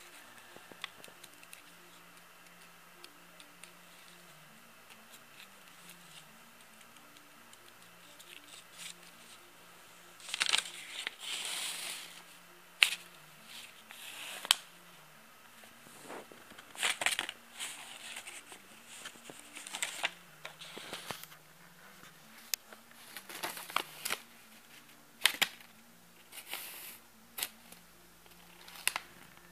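Intermittent rustling and crackling close to the microphone, in irregular bursts with sharp clicks from about ten seconds in, over a faint steady low hum.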